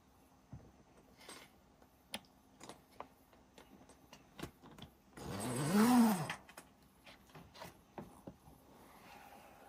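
Scattered light clicks and knocks of someone moving about inside a camper trailer. About halfway through comes the loudest sound, a drawn-out voice sound from the man that lasts about a second and rises then falls in pitch.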